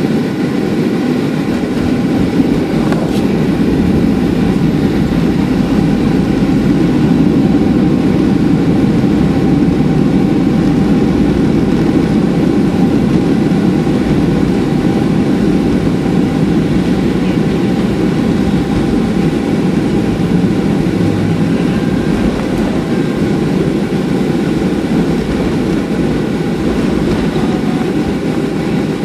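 Boeing 737-400 landing rollout heard from inside the cabin: a steady, loud roar from the CFM56 jet engines in reverse thrust, over the rumble of the wheels on the runway. It swells a few seconds in as the reversers spool up and slowly eases as the aircraft slows.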